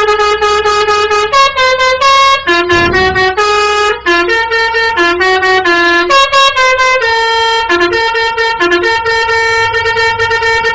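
Indonesian 'telolet' basuri musical bus air horn playing a tune. It holds a long note for over a second, then steps quickly through a run of short notes at different pitches, then holds longer notes again.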